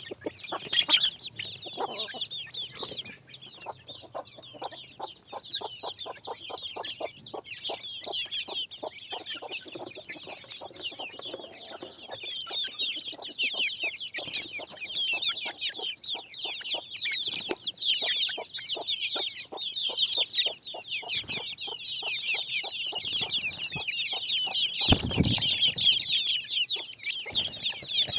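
Chickens clucking over a dense, continuous chorus of high, rapid peeping chirps, with many short clucks and pecking-like knocks throughout. Near the end there is one louder, low thump.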